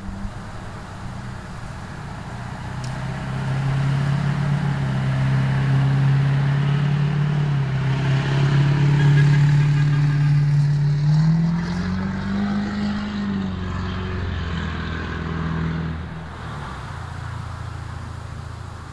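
A motor vehicle driving past on the road. Its engine note holds a low steady pitch and grows louder toward the middle, rises briefly about two-thirds of the way through, then drops away and fades.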